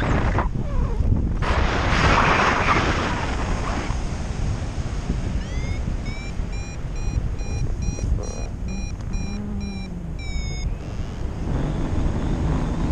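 Wind rushing over the microphone in paraglider flight, strongest in a gust about two seconds in. From about halfway through, a flight variometer beeps in a rapid series of short tones, the sign that the glider is climbing in lift, and the beeping stops abruptly near the end.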